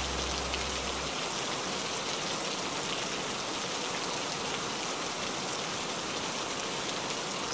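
Steady rain falling, an even hiss with fine raindrop ticks. A low bass note dies away about a second in.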